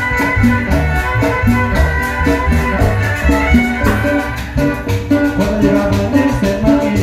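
A Salvadoran chanchona band playing: violins carry the melody over a plucked upright bass, with a steady quick beat of shaker-like percussion strokes.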